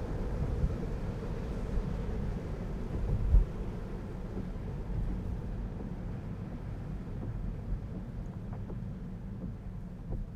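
Road and tyre noise inside a Tesla Model 3's cabin: a steady low rumble with one thump about three seconds in, growing a little quieter toward the end.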